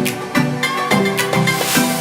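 Background music with a steady beat: electronic dance music with plucked, pitched notes.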